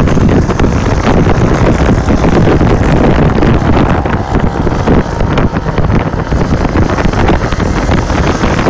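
Small motorcycle engine running steadily under throttle as the bike is held up in a wheelie, mixed with heavy wind buffeting on the microphone.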